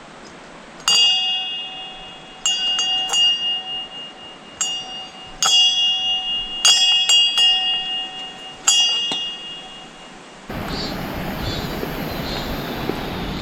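A small metal bell struck about a dozen times at uneven intervals, each strike ringing out with clear high tones. About ten and a half seconds in it gives way abruptly to the loud, steady rush of the waterfall.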